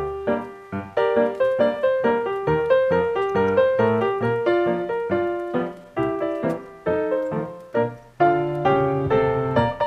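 Background piano music: a steady, lively run of notes.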